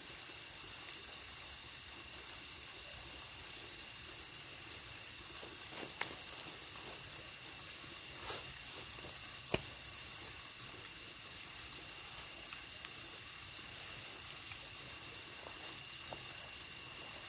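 Campfire crackling, with a few sharp pops scattered through, over a steady hiss and a thin steady high tone.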